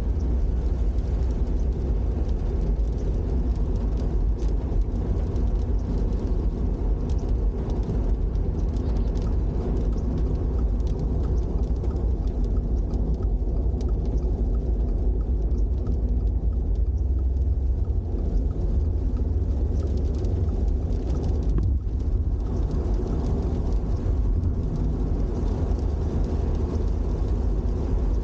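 Toyota GR86 on the move: a steady, deep rumble of its 2.4-litre flat-four engine mixed with road and tyre noise, with faint scattered ticks over it.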